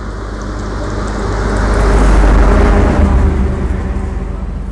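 A motor vehicle passing close by on the road: engine and tyre noise swell to a peak about halfway through and then fade away.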